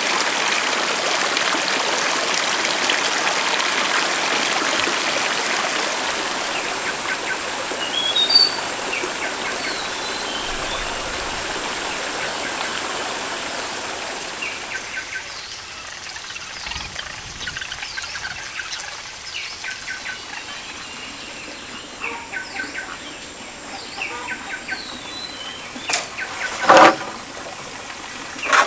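Steady rush of running stream water that fades about halfway through, with birds chirping now and then. A couple of sharp knocks near the end are the loudest sounds.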